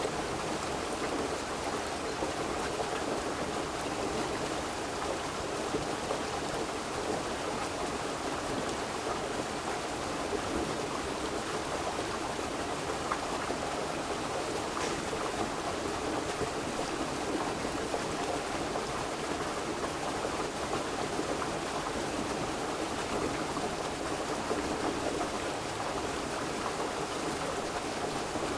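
A river flowing, a steady, unchanging rush of water.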